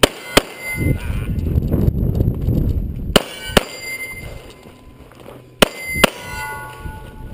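9mm Smith & Wesson M&P9 Pro pistol fired in three quick double shots a couple of seconds apart, with steel targets ringing after the hits. A low rumble runs between the first two pairs.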